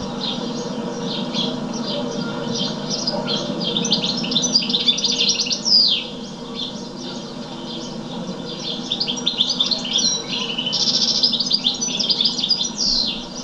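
Small songbirds chirping and twittering, many quick overlapping calls with a few falling whistled notes, over a steady low hum.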